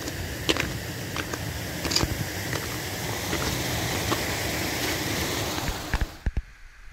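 Footsteps in snow, roughly one or two a second, over a steady rushing hiss. The hiss cuts off abruptly about six seconds in.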